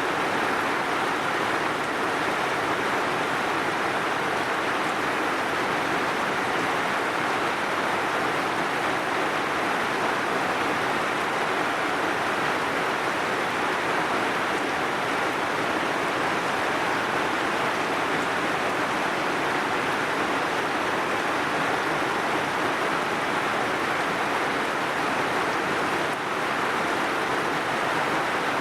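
Heavy rain falling steadily, an even hiss of water without thunder or separate drops standing out.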